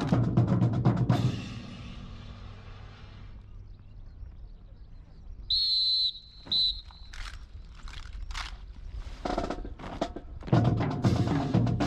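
Drum-led march music that fades out, then a whistle sounds twice, one long note and one short, followed by a few sharp knocks of M1 Garand rifles being handled in drill. The drum music starts again about three seconds before the end and grows louder.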